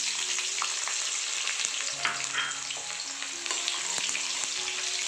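Freshly added sliced onions sizzling in hot mustard oil in a steel kadai, a steady loud hiss. A spatula stirring through them scrapes and clicks against the pan, with faint background music underneath.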